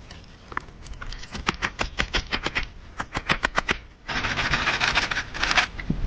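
Hand work with wood or plant material: a quick run of sharp taps or snaps, several a second, then about a second and a half of rustling or scraping near the end.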